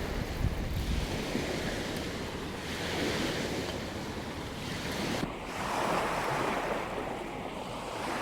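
Rushing noise of waves and wind, swelling and easing every few seconds, with no clear tones.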